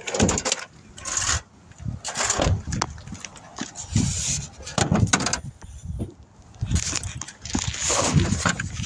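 Irregular scraping, rubbing and knocking of metal parts and tools being handled during repair work on a car, in short uneven bursts with no steady rhythm.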